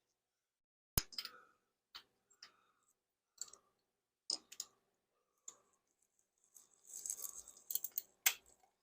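Metal hand tools clicking and clinking as a socket wrench is tried on a spark plug of a motorcycle engine, the socket too short without an extension. A sharp click about a second in, scattered clicks after, and a denser clatter near the end.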